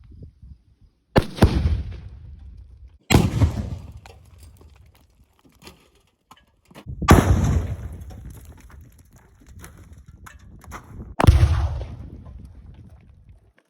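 Tannerite explosions: four sudden loud blasts, each fading over a second or two, the first two about two seconds apart and the rest about four seconds apart.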